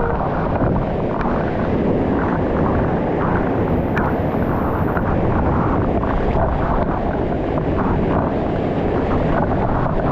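Steady loud rush of fast-flowing water, an even roar with no break.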